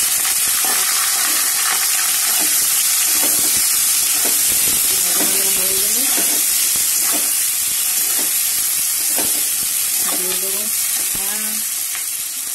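Sliced onions and green chillies sizzling loudly in hot oil in a metal kadai, just after being dropped in, with a metal spatula scraping against the pan as they are stirred. The sizzle slowly dies down near the end.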